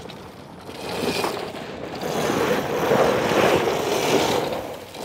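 Electric quad accelerating hard across loose dirt, its rear tyres spinning and spraying dirt. The rushing, scraping noise grows louder, peaks about three to four seconds in, then eases.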